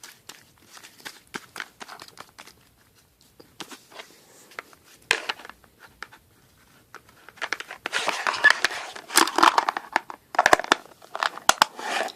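Homemade slime being squeezed and stretched in the hands, giving scattered crackling, popping clicks that grow denser and louder in the second half.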